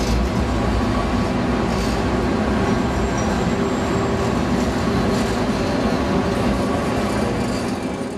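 San Diego Trolley light-rail train passing close by at a platform, a steady loud noise of wheels on rail and traction running gear that starts to ease near the end.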